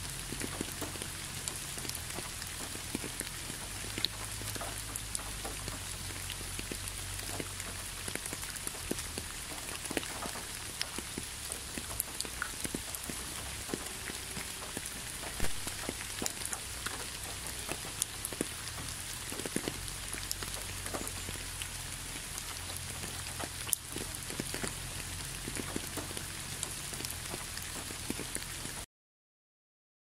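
Steady rain falling, an even wash of sound dotted with many separate drops striking close by. It cuts off suddenly about a second before the end.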